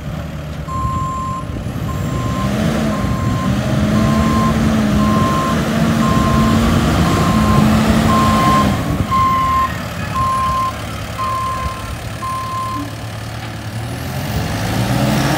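SkyTrak 8042 telehandler reversing: its backup alarm beeps at one steady pitch about once a second, stopping about thirteen seconds in, while its diesel engine runs underneath. The engine's pitch rises about two and a half seconds in and drops back near nine seconds.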